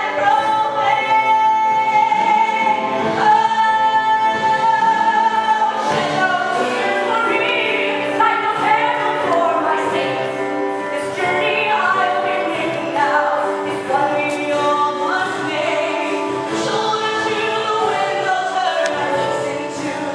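Musical theatre song: singing over orchestral accompaniment, with long held notes for the first several seconds.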